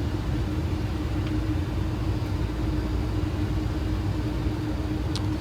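Steady flight-deck noise of a Boeing 737 in flight on approach: a constant rush of airflow and engine noise with an unchanging hum.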